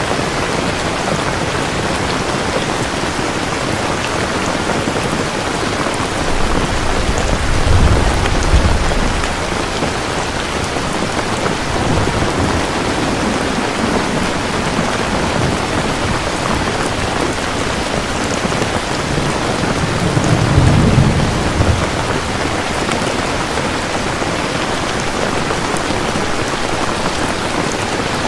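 Steady heavy rain, with low thunder rumbling twice, about eight seconds in and again about twenty-one seconds in.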